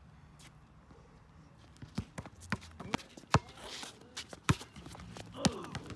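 A basketball bouncing on a concrete court, with sharp irregular bounces starting about two seconds in, mixed with sneakers stepping and scuffing on the concrete.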